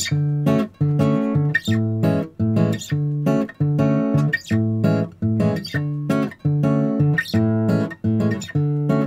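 Background music: strummed acoustic guitar chords in a steady, even rhythm.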